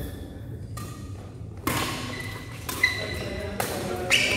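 Badminton rackets striking a shuttlecock during a fast rally: a run of sharp hits, three or four of them less than a second apart, starting about halfway through.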